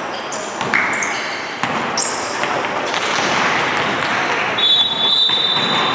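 Basketball game in an echoing gym: the ball bouncing and players' footfalls on a hardwood court, under a steady din of spectators talking and shouting. Near the end a steady high tone holds for about a second.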